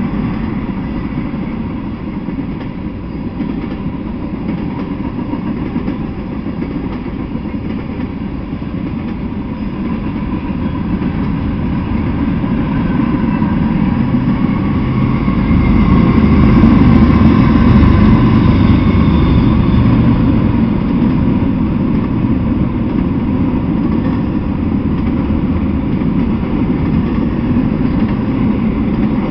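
Mixed freight train cars (tank cars, covered hoppers, boxcars and intermodal well cars) rolling past on the rails: a steady low rumble of steel wheels on track that grows louder to a peak a little past halfway and then eases slightly.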